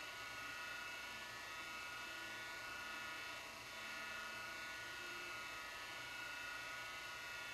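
Steady background hiss with several constant high-pitched tones and a low hum, with no distinct knocks or footsteps.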